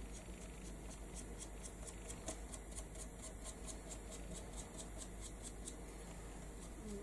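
A dry paintbrush scratching lightly over a wooden frame in quick short strokes, heard as a faint run of about four or five ticks a second, as wax is dry-brushed onto the raised stencil work.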